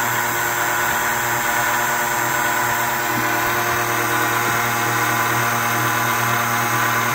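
Key-cutting machine running steadily, its cutter milling the cuts into the blade of a new Toyota key.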